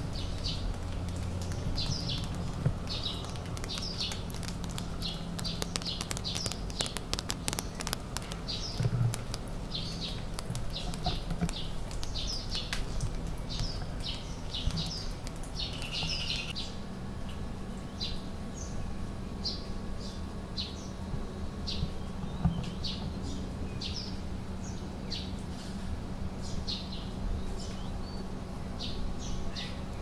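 Small birds chirping over and over, short high calls about one or two a second, over a steady low hum.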